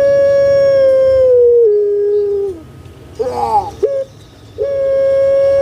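Puter pelung dove (Barbary dove, Streptopelia risoria) giving its loud drawn-out coo: a long held note that steps down in pitch and falls away, then a quick rolling warble and a short note, and a second long held note starting just before the end.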